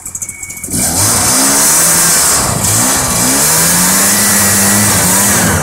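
Snowmobile engine revved hard, its track churning in deep snow as the sled is driven to get unstuck. The revs climb about a second in, dip briefly, hold high, then drop off at the end.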